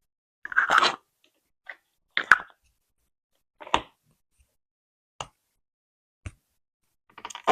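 Small plastic slime jars handled and set down one by one on a wooden surface: a string of separate clicks and taps with silence between them, a slightly longer rustling handling noise about half a second in and again near the end.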